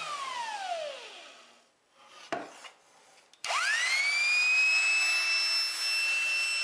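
1953 Porter Cable worm drive trim saw running with no load on its first test run after reconditioning. Its whine falls away as the motor coasts down, and there is a brief blip about two seconds in. Then, with a click, the motor starts again, its whine rising quickly to full speed and holding steady.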